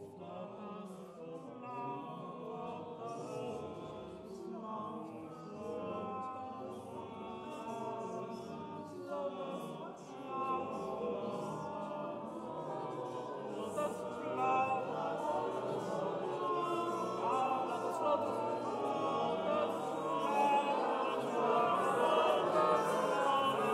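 Choir singing, many voices in overlapping sustained lines, gradually growing louder.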